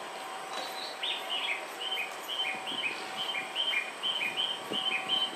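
Quick run of short bird-like chirps, switching back and forth between two pitches several times a second, over a steady background hum.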